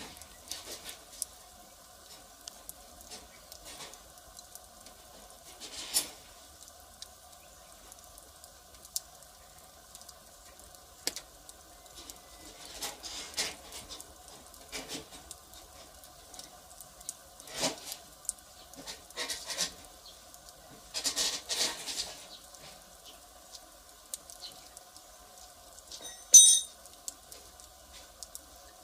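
Firewood fire crackling, with scattered sharp pops and a few short bursts of crackles, and one loud pop near the end. A faint steady whine sits underneath.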